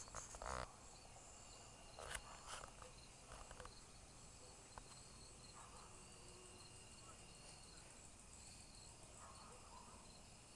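Faint insect chirring, crickets going steadily in the background, with a few brief soft sounds near the start and about two seconds in.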